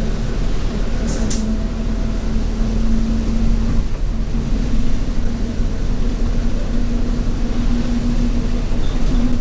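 Alexander Dennis Enviro200 bus heard from on board while under way: its engine and drivetrain make a steady low drone with a held steady tone over it. Two sharp clicks come about a second in.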